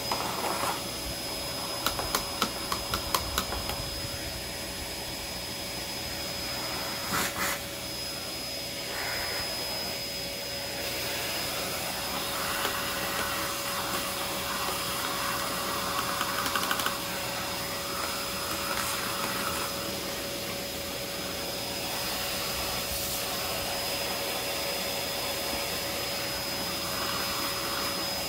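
Bissell PowerForce Compact's 6.2-amp vacuum motor running steadily with a high whine, its bare belt spindle spinning while a stone is held against it to grind off rust. A quick run of sharp clicks comes about two to three seconds in, with patches of rougher scraping noise later.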